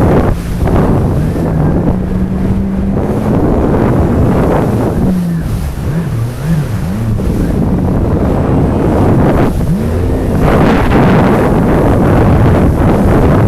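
Jet ski engine running, its pitch holding steady and then rising and falling as the throttle changes, under heavy wind rumble on the microphone.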